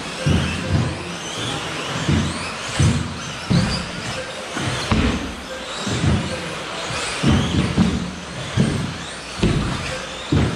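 1/10 scale 2WD electric off-road RC buggies racing: the motors whine, rising and falling in pitch as they accelerate and brake, over repeated irregular thuds of the cars landing and hitting the track.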